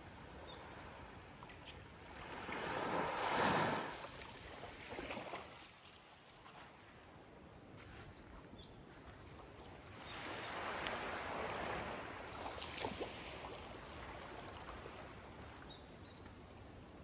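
Small waves lapping onto a sandy shore of calm, sheltered water. One wash swells and breaks about three seconds in. A longer, softer one follows from about ten to thirteen seconds in, with a few small clicks.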